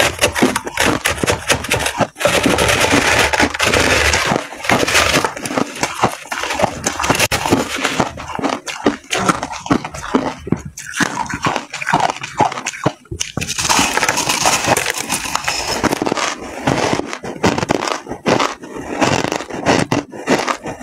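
Mouthfuls of refrozen ice chunks and frosty shaved ice being chewed close to a clip-on microphone: dense, loud crackling crunches, with a quieter lull about ten seconds in before the crunching picks up again.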